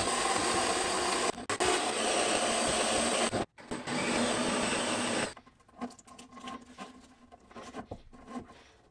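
A small electric motor-driven tool runs steadily for about five seconds, cutting out briefly twice, then stops; light clicks and handling knocks follow.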